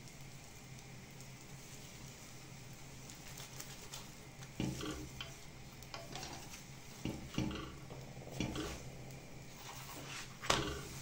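A metal spoon scraping and tapping against a flat cast-iron chapati pan as oil is spread over a cooking chapati, with oil sizzling on the hot pan. The strokes start about four seconds in, come several at a time, and end in a sharp metallic clink near the end.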